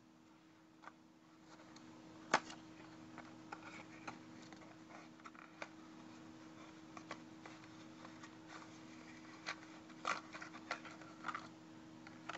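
Faint clicks and taps of hands handling a small toy car and its packaging, the sharpest click about two seconds in and a cluster of taps near the end, over a faint steady hum.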